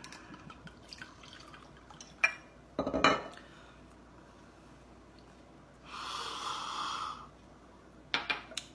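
Liquor trickling from a bottle into a small glass, then the bottle knocking onto a stone countertop about three seconds in. A second of hissing noise about six seconds in, and a few light glass clicks near the end.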